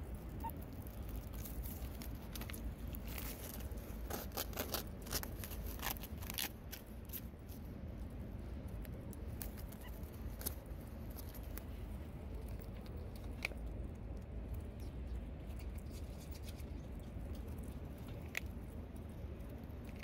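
A meerkat digging in sandy soil with its front claws: quick runs of scratching and scattering grit, busiest a few seconds in, then only occasional scrapes, over a steady low hum.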